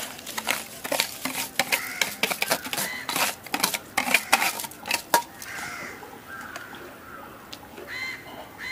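Rapid, irregular clinking and clattering of metal kitchenware against a cooking pot as biryani rice is added, stopping about five seconds in. After that, crows caw a few times.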